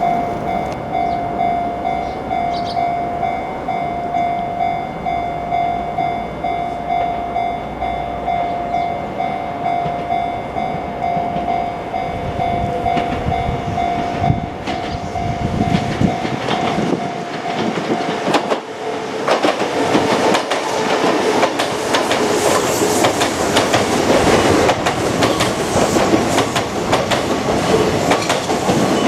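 Japanese level-crossing alarm bell ringing in a steady repeating ding-ding. A Kintetsu electric train approaches and passes over the crossing, its noise swelling from about halfway and covering the bell, with wheels clattering over the rail joints.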